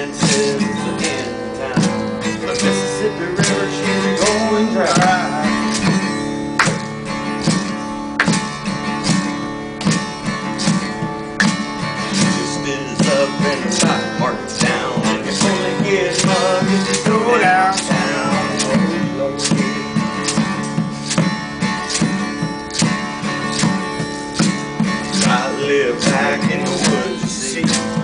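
Acoustic guitar strummed in a country song, kept time by a steady beat of kitchen implements struck as makeshift percussion.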